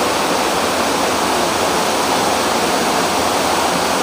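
Rain falling steadily, a loud, even hiss with no breaks.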